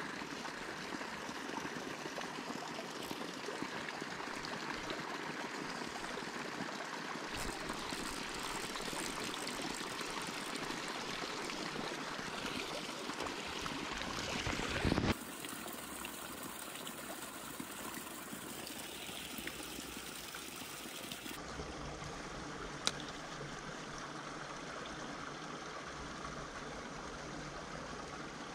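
Mountain stream rushing and trickling steadily, water spilling over into a clear pool. A brief louder swell just before halfway stops abruptly, and a single sharp click comes a little later.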